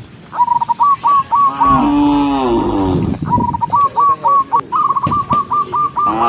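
A cow mooing once, a long call that dips slightly in pitch, about two seconds in, with rapid, repeated high chirping from a bird before and after it; a second moo begins at the very end.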